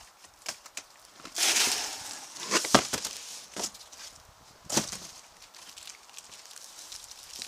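Cardboard boxes sliding and scraping against each other as a boxed speaker is pulled out of its shipping carton. There is a long rush of scraping about a second and a half in, and a few sharp knocks and thumps of cardboard around the three- and five-second marks.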